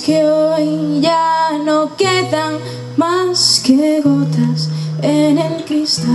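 A woman singing a waltz live, accompanying herself on acoustic guitar, in short sung phrases with brief breaks between them. Her voice stops near the end while the guitar rings on.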